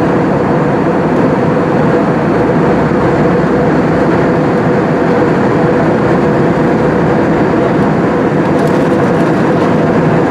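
Airbus A320-200 in flight, its engine and airflow noise heard from inside the cabin as a steady roar with a constant hum in it.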